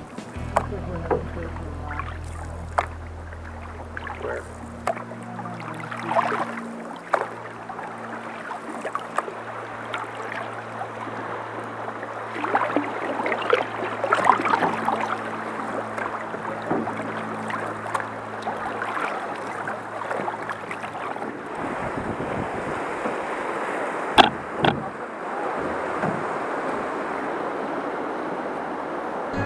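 Canoe paddles dipping and splashing while river water rushes past the hull through choppy water. Later comes the steady rush of a waterfall's rapids, with two sharp knocks near the end.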